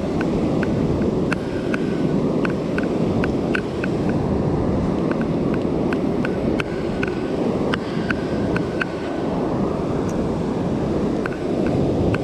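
Surf washing onto the beach and wind buffeting the microphone as a steady rushing noise, with light irregular clicks throughout.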